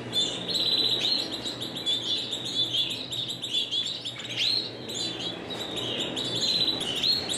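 Spanish Timbrado canaries singing: fast trills and chirps, with a couple of rising whistled notes.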